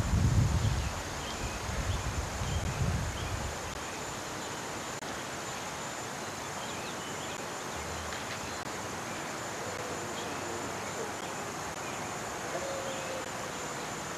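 Steady hiss of old camcorder tape audio with faint outdoor background, a thin steady high whine under it, and a low rumble on the microphone for the first three seconds or so. A few faint high chirps are scattered through it.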